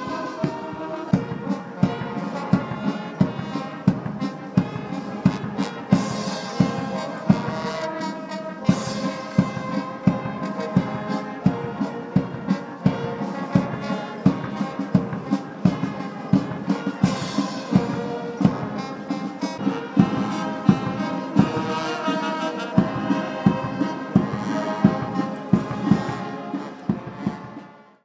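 Military brass band playing a march, brass over a steady drum beat about twice a second; the music stops near the end.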